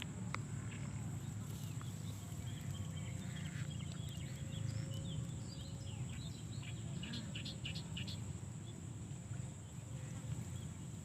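Outdoor rural ambience: a steady high-pitched insect drone with scattered short bird chirps over a low steady rumble.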